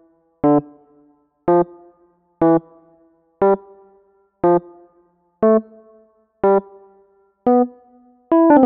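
Portable electronic keyboard playing short piano-voice chords, about one a second, each dying away quickly; near the end a quick flurry of notes begins.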